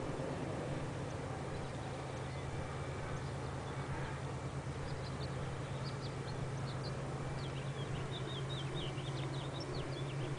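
Distant BNSF diesel locomotives (GE Evolution and Dash 9 units) working a heavy double-stack freight train uphill, heard as a steady low drone. From about three seconds in, small birds chirp repeatedly in quick, short notes, more densely near the end.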